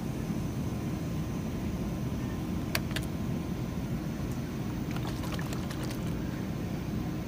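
Steady low hum of grocery-store refrigeration and ventilation. A few light clicks and taps come as a plastic juice bottle is lifted off the chilled shelf and handled: two sharp ones near the middle, then a quick cluster a little later.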